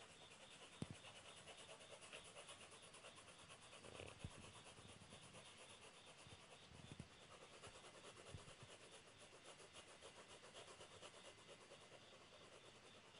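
Pencil lead rubbing on drawing paper in quick, even back-and-forth shading strokes, about four a second, with a light knock about a second in and another near the middle.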